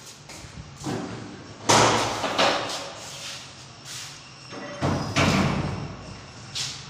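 Handling noise from a handheld phone: a series of irregular thumps and rubbing bumps. The loudest come about two seconds in and around five seconds in.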